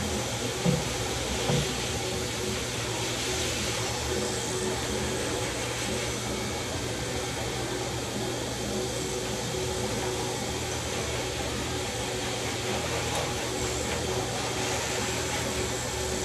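Electric dog clippers with a #4 blade running steadily as they are worked through a dog's curly coat: a constant hum over a steady rushing noise. Two short low thumps come about a second in.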